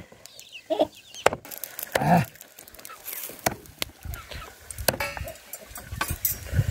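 A large knife chopping chicken meat on a wooden block, sharp knocks every second or two, with short calls from a domestic chicken in between.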